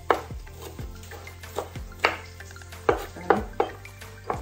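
Kitchen knife chopping an onion on a wooden cutting board: irregular knocks of the blade on the board, about two a second, over background music with a low beat.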